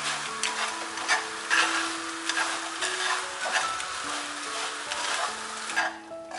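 Dried anchovies being stir-fried in a pan with gochujang sauce: a spatula stirs and scrapes in quick strokes, two to three a second, over a sizzle. The stirring eases off near the end.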